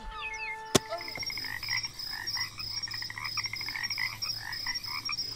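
Chorus of frogs croaking, many calls overlapping, starting about a second in. Just before, a single sharp click cuts off a few held tones.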